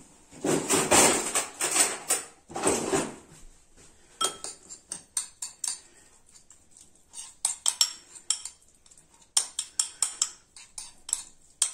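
A metal spoon stirring chopped capers, herbs and oil in a ceramic bowl: a few scraping strokes at first, then many short, irregular clinks and taps of the spoon against the bowl.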